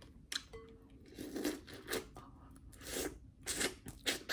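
Close-up eating sounds as a sauce-covered snow crab leg is bitten and the meat sucked and chewed from the shell: about six short, separate wet crunches and slurps, roughly one a second.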